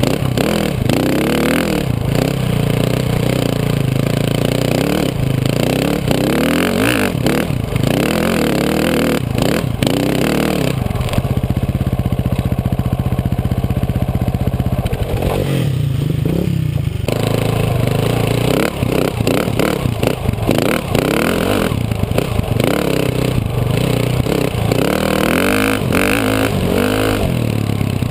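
KTM 450 single-cylinder four-stroke dirt bike engine heard close up from its rear fender, revving up and down as the bike rides a bumpy trail, with rattling and scraping from the ride. About halfway through it settles for a few seconds to a steady, even note, then picks up again.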